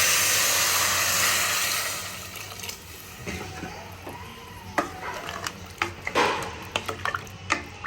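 Broken wheat (dalia) and vegetables sizzling in a hot pressure cooker pan, loud at first and dying down after about two seconds, followed by scattered clicks and scrapes of a utensil stirring in the pan.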